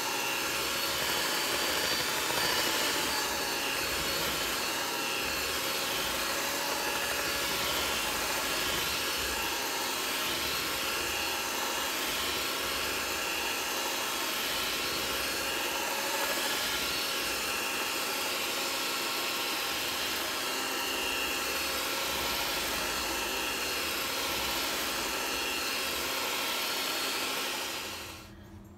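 Cuisinart electric hand mixer running at a steady speed, its beaters churning thick cake batter in a bowl. The motor gives an even whine with several held tones and cuts off near the end.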